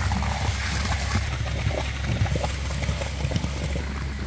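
Wet concrete gushing from a concrete pump hose into a post hole, sloshing and splattering, over the steady drone of the concrete pump.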